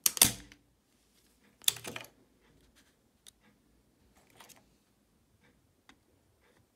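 A spring-loaded desoldering pump snaps as it fires, sucking molten solder off the motor's terminal pads. A second loud clatter comes about two seconds in, followed by a few faint light clicks.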